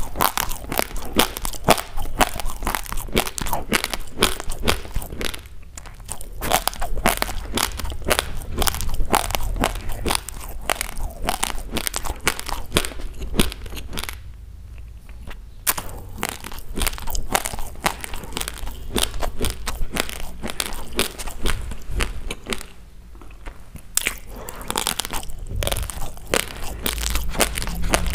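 Close-miked chewing of raw basmati rice: dense, rapid crunching of the hard dry grains between the teeth, with three short pauses.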